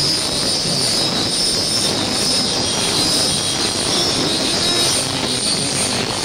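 Steady, dense rushing noise with a constant high whistle running through it.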